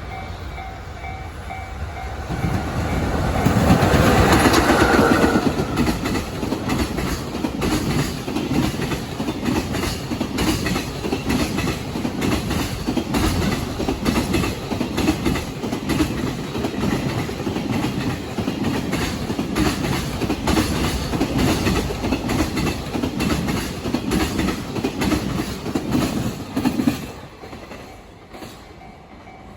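A long freight train passing over rail joints: the locomotive goes by loudest a few seconds in, then the wagons follow in a long, loud, rapid clickety-clack of wheels over the joints. The clatter stops suddenly near the end, leaving a steady ringing that suits the level crossing's warning bell.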